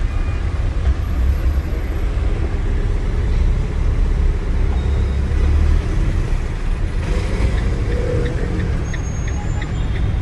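Camper van cab interior while driving slowly in city traffic: a steady low engine and road rumble, with faint ticking in the last few seconds.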